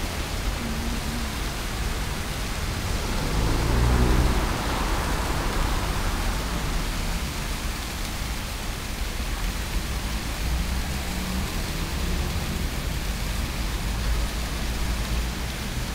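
Large ornamental fountains' jets splashing steadily into their stone basins, an even rushing hiss, with a low rumble underneath that swells about four seconds in.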